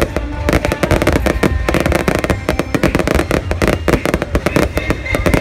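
Fireworks display: a dense, unbroken run of bangs and crackles, many every second.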